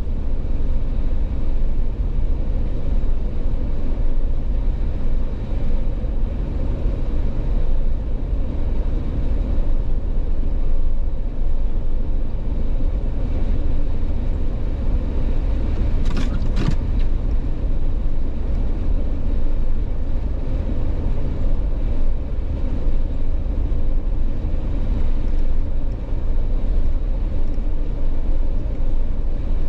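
Jeep driving at road speed: a steady low rumble of engine, tyres and wind. Two short, sharp sounds come about sixteen seconds in.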